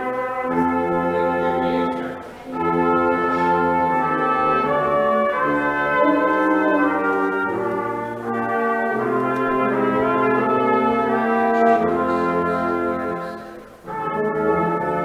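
Small brass ensemble of trumpets, euphonium and tuba playing sustained chords in slow phrases, with a brief break between phrases about two seconds in and another near the end.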